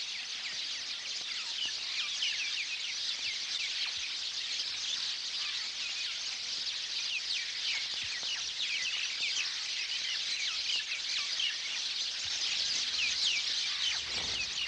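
A large flock of birds chirping at once: a dense chatter of many short, high, falling chirps overlapping without pause.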